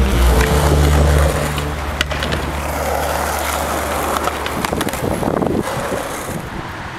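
Skateboard wheels rolling and grinding over rough concrete, with several sharp clacks of the board. A low steady hum is loudest in about the first second and a half, then fades under the rolling.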